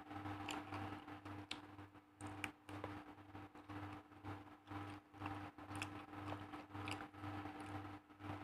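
Faint scattered clicks and crackles of eating by hand: fingers picking rice and raw leaves off the paper lining of a bamboo basket. Under it runs a low hum that pulses a couple of times a second.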